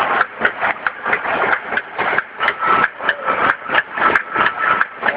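Automatic liquid packing machine running, cycling in a fast, even rhythm of about three strokes a second, with a faint steady whine joining in midway.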